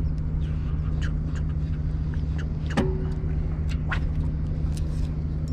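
A steady low engine hum with faint, short clicks and chirps scattered over it.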